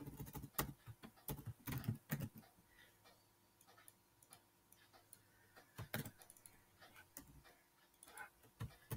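Faint keystrokes on a computer keyboard: a quick run of key clicks in the first couple of seconds, then a pause, then a few scattered clicks later on.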